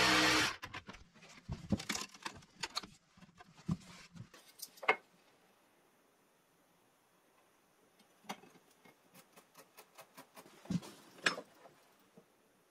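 A plunge saw on a guide rail stops about half a second in. Scattered clicks and knocks follow as tools and wood are handled, with light taps and clatter later on from a spirit level and a metal drawer slide against a plywood drawer unit.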